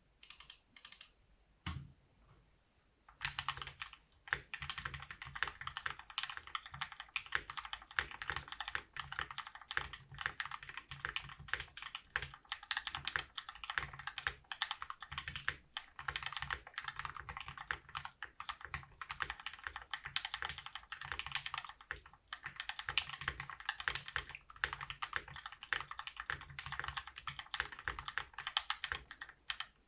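Voice65 mechanical keyboard with lubed Gateron Black Ink linear switches on an aluminium plate and GMK keycaps, typed on fast and without pause. A few single key presses and a low thump come first, then continuous typing starts about three seconds in, with some reverb from the desk underneath.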